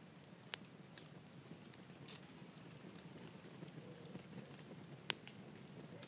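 Faint outdoor ambience: a steady low hiss with a few scattered sharp ticks, the loudest about five seconds in.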